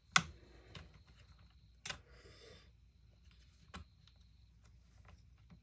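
Scattered sharp clicks and taps of small parts being handled on a partly disassembled chainsaw, with a brief rustle about two seconds in; the loudest click comes right at the start.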